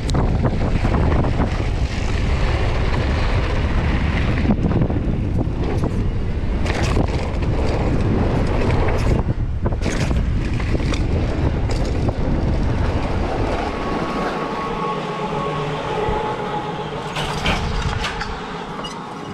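Mountain bike ridden fast down a rough dirt-and-grass trail: wind buffeting the camera microphone, tyres on dirt, and the bike's frame and chain rattling and knocking over bumps. About fourteen seconds in the rumble eases and it turns quieter, with a faint steady whine and scattered clicks.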